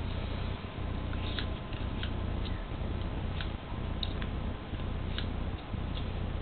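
Small grooming scissors snipping a dog's fur: sharp single clicks at irregular intervals, about one a second, over a steady low hum.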